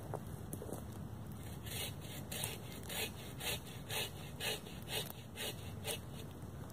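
Agawa Canyon Boreal21 folding bow saw cutting through a fallen tree limb, in steady back-and-forth strokes about two a second that begin a second or so in.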